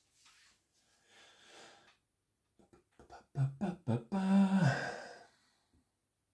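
A man's breathing, then a few short clicking mouth sounds and brief voiced grunts, and a held hum about four seconds in.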